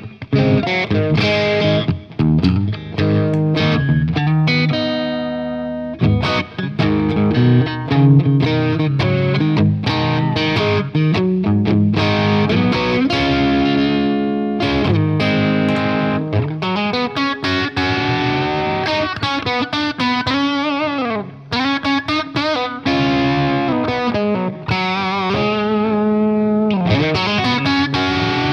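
Telecaster-style electric guitar played through an Origin Revival Drive overdrive pedal, giving a driven tone. It plays sustained notes and chords with string bends.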